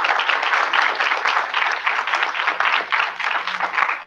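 A roomful of people applauding, many hands clapping together.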